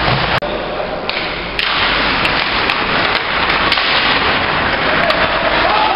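Ice hockey play: a loud, steady wash of rink noise with scattered sharp clacks of sticks and puck.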